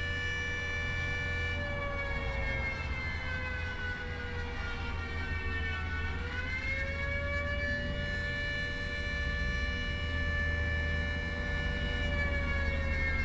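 Flood warning siren sounding during a test: a chord of tones that slowly sags in pitch, dips to its lowest about six seconds in, then climbs back and holds steady before easing down again near the end, over a low rumble.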